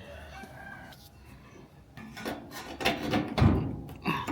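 The sheet-metal cabinet of a gas clothes dryer is pried and handled with a putty knife. Starting about two seconds in, there is a run of knocks and scrapes, with the loudest thud about three and a half seconds in.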